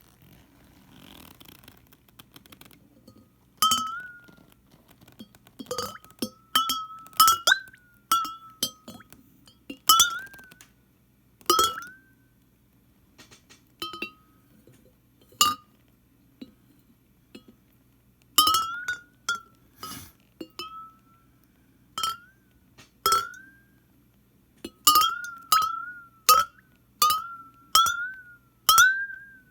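Ceramic sake flask being heated as atsukan, giving irregular sharp clinks, many followed by a short ringing note that bends slightly upward.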